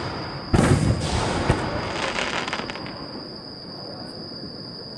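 Aerial firework shell bursting with a loud boom about half a second in. The boom fades with echo and a brief spell of crackling about two seconds in.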